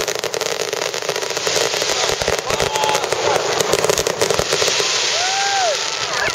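Aerial fireworks shells bursting and crackling in rapid, dense succession, a constant run of sharp pops and crackles.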